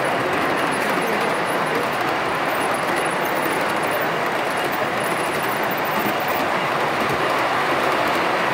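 G-gauge model freight train rolling past close by, a steady rumble of its cars' wheels running on the track.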